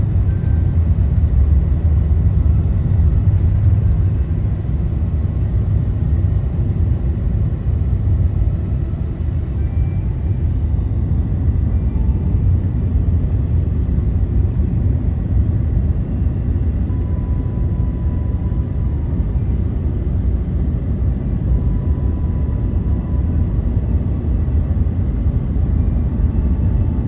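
Steady low rumble of a moving vehicle, road and engine noise heard from inside the cab while driving.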